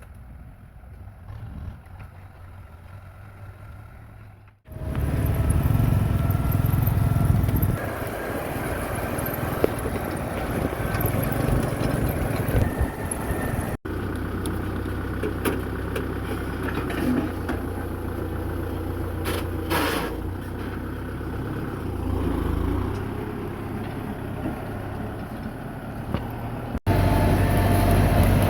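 Kubota M6040 tractor's diesel engine running, faint for the first few seconds and then much louder from about five seconds in, with the sound changing abruptly twice more.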